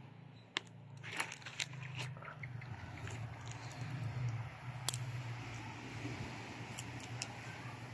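Dry palm fronds and leaf litter crackling and rustling in scattered short clicks as a hand rummages through them, over a steady low hum.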